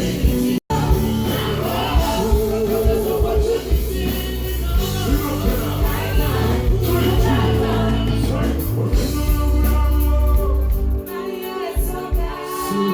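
Loud music with singing over a heavy bass line and beat, with a split-second dropout of all sound about half a second in. The bass falls away near the end.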